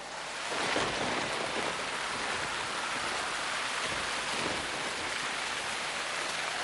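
Heavy rain pouring down in a steady, even hiss that swells in over the first second.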